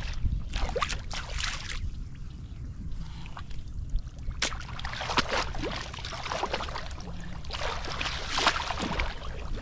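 Footsteps wading through shallow floodwater and mud, splashing and sloshing in three clusters a few seconds apart, over a steady low rumble.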